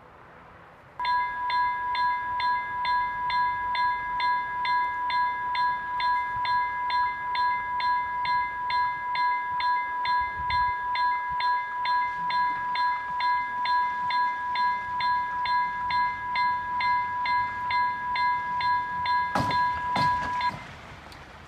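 Electronic level-crossing bell (e-bell) ringing rapidly, about two strikes a second, warning that a train is coming; it starts about a second in and cuts off suddenly near the end, with a sharp knock just before it stops.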